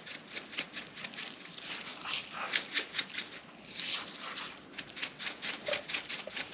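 Coarse Montreal steak seasoning being sprinkled and pressed into raw ribeye with a gloved hand: a run of short dry crackles, pats and rustles, several a second, busier in the second half.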